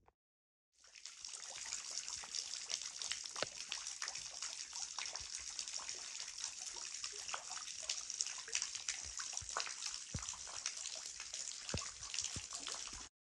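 Water falling from the grotto's rock ledge and splashing into the pool below: a steady patter and splash with many separate drops. It starts about a second in and cuts off suddenly near the end.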